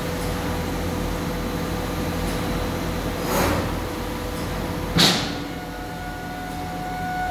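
TRUMPF TRUMATIC L 2530 Plus laser cutting machine running with a steady hum. A swell of hiss comes about three seconds in, and a sudden, louder hiss at about five seconds, after which a steady whine holds to the end.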